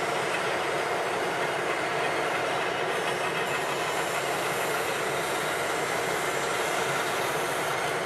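Vögele Super 1800-2 tracked asphalt paver working, a steady mechanical noise of its engine and paving gear running, while a tipper truck with its bed raised feeds its hopper.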